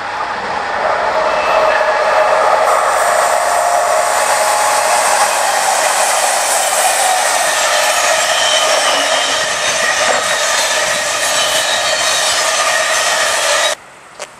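Intercity train hauled by two DB class 218 diesel-hydraulic locomotives in double traction passing close, a loud steady rushing rail noise that builds over the first couple of seconds. It cuts off abruptly near the end.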